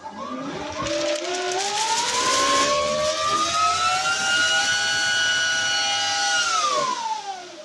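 3D-printed contra-rotating two-stage electric ducted fan thruster spooling up with a rising, multi-toned whine, holding a steady high whine, then winding down about a second before the end. For the first few seconds a sheet of printer paper held in its blast flutters noisily until the airflow tears it apart.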